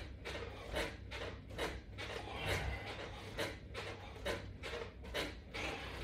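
Steady reps of a resistance-band pull-down crunch: a short, noisy burst with each pull, evenly spaced a little more than once a second, about seven in all.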